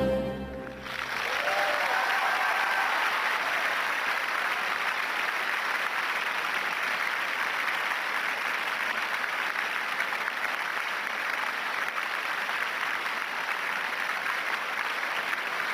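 Theatre audience applauding steadily as the last note of the ballet music stops within the first second, with a few rising shouts of cheering about two seconds in.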